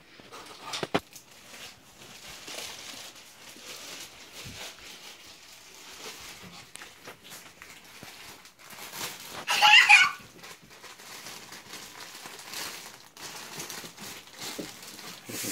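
Clear plastic wrapping crinkling and rustling as it is pulled off a rapier's blade and hilt. There is a sharp click about a second in, and a brief high-pitched squeal about ten seconds in is the loudest sound.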